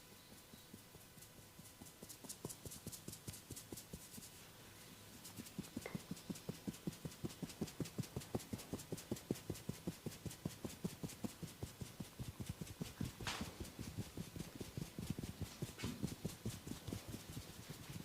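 A masseur's hands tapping and patting rhythmically on bare skin in a percussive massage, several quick strokes a second, growing louder about five seconds in. One sharper click stands out about two-thirds of the way through.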